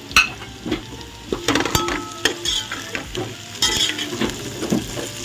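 Chopped vegetables sizzling in hot oil in an aluminium pot while a metal spoon stirs them, knocking and scraping against the pot's side and bottom every half second or so.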